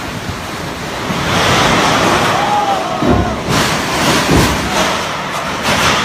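Storm wind gusting hard, a loud rushing noise that swells and buffets the microphone.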